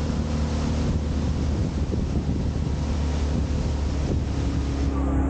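Dinghy's motor running steadily while under way, a low even hum, with wind buffeting the microphone and a wash of water noise.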